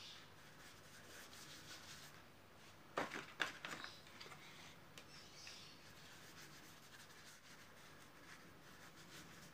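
A flat paintbrush rubbing and dabbing paint onto a painting, faint, with a short cluster of sharp knocks and clicks about three seconds in.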